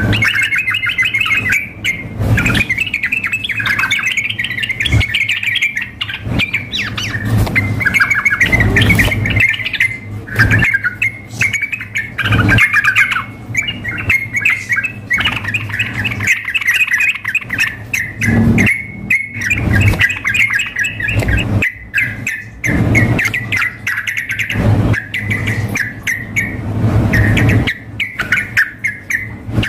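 Yellow-vented bulbuls chattering and singing almost without pause: rapid bubbly phrases from a calling bird mixed with a male's vigorous, excited song.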